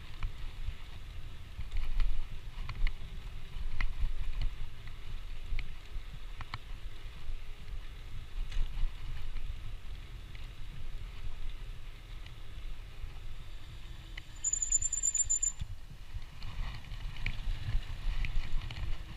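Wind rumbling on the microphone during a bicycle ride, with scattered light clicks and rattles. A short, high squeak sounds about three-quarters of the way through.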